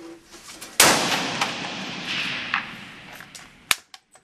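A single shot from a Sig PE90 rifle in 5.56×45mm NATO, its report echoing and dying away slowly down a rock tunnel range. A short sharp click follows near the end.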